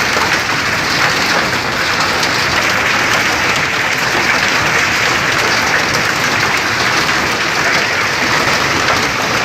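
Heavy rain falling steadily: a dense, even hiss of countless drops that does not let up.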